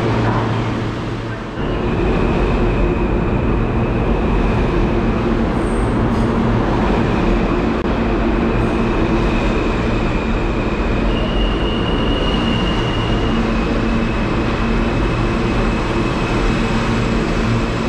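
New York City subway train running along the platform: a loud, steady rumble of wheels on rail, with a high whine that steps in pitch a few times.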